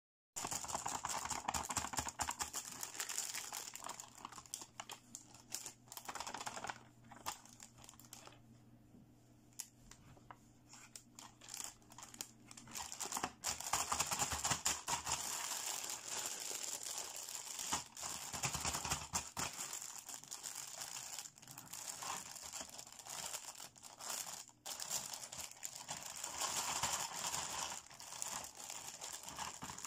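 Clear plastic bag crinkling and rustling as hands work it open, with light clicks of hard plastic toy pieces knocking together inside. It quietens for a few seconds about a third of the way in, then grows louder again.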